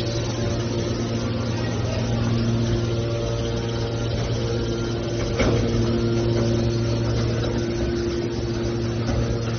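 Hydraulic metal baler running: a steady hum from its hydraulic power unit, with one short knock about five and a half seconds in.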